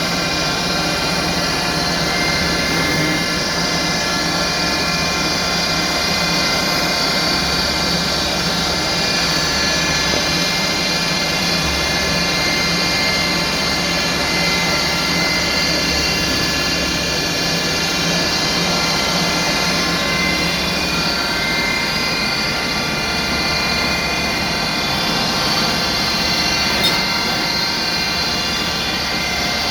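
CNC-retrofitted Lagun milling machine running: a steady mechanical whine made of many steady tones, with a low hum that comes and goes every few seconds and a single click near the end.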